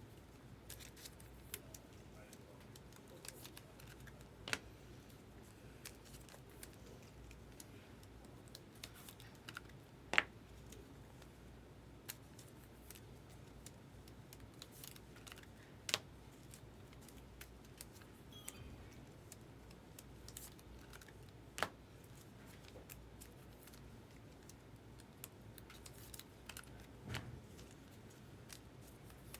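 Faint clicks and taps of trading cards and plastic card holders being handled and set down on a table: scattered light ticks, with a few sharper clacks every five or six seconds.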